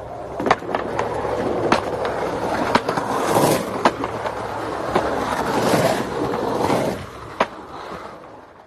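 Skateboard wheels rolling on rough asphalt, broken by sharp wooden clacks of boards popping and landing every second or so. The rolling grows quieter near the end.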